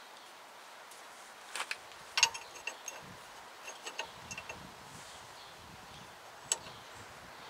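Scattered sharp metal-on-metal taps, loudest about two seconds in, some with a short metallic ring: a hammer striking a chisel to knock the circlip off the bottom of a pickup's upper ball joint.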